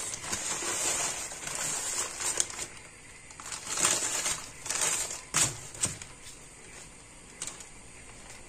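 Baking paper crinkling and rustling as it is peeled open from around a rolled sponge cake. It comes in irregular bursts over the first six seconds, the sharpest crackles about five and a half seconds in.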